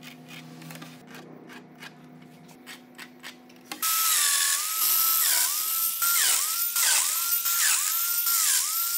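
A few light ticks of pencil and rulers marking out on the slab. Then, about four seconds in, a Festool Domino DF 500 joiner starts and cuts a mortise into a Korean mahogany board: a loud high motor whine that dips in pitch and recovers a little more than once a second as the cutter bites into the wood.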